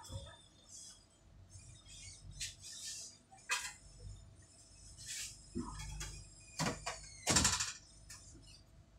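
Scattered knocks, scrapes and rustles of handling work in an open display freezer cabinet, the loudest about three quarters of the way through, over a faint steady hum.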